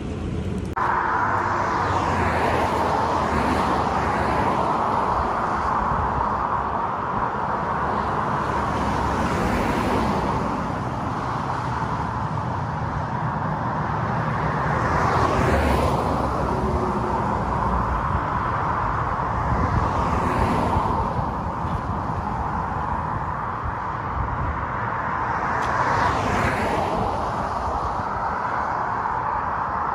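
Road traffic heard from a bicycle on a highway: a steady rush of road noise, with about five vehicles going by, one every few seconds. The one near the middle is the loudest.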